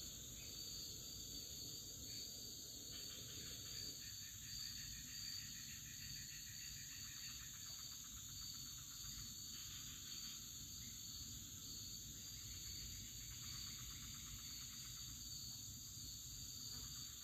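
Faint, steady chorus of insects chirring, with softer pulsing calls that come and go.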